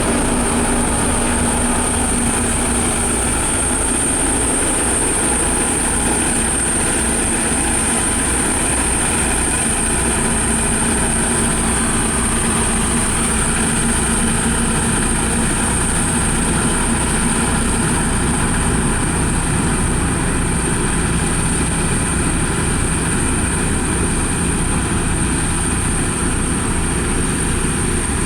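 Heavy diesel road-construction machinery running steadily at work, with a constant high-pitched whine over the engine noise.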